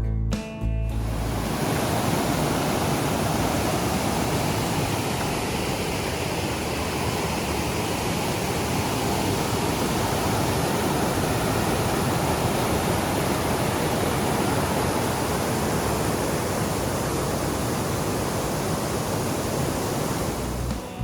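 The French Broad River rushing in a steady, loud roar of moving water.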